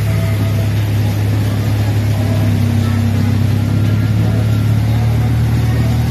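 CFMOTO CForce ATV's engine running loud and steady as the quad rides along, with no clear revving.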